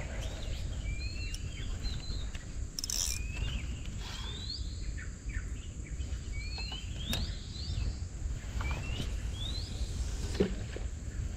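Birds calling with short, rising whistled chirps, repeated many times, over a constant low rumble and a steady high insect whine.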